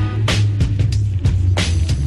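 Background music with a steady bass line and drum hits.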